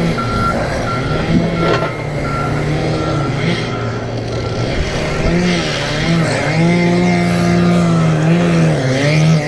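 Heavy machinery engine running, with a backup alarm beeping about twice a second for the first few seconds. From about five seconds in, the engine's pitch rises and falls as it works.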